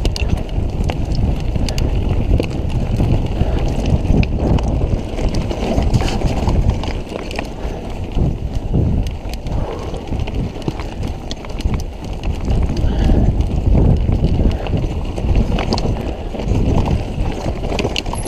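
Mountain bike riding fast over rocky, gravelly singletrack: steady wind rumble on the microphone with the tyres crunching and the bike rattling and knocking over loose rocks.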